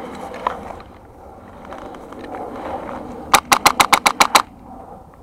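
Airsoft rifle firing a rapid burst of about eight shots in roughly one second, a little over three seconds in.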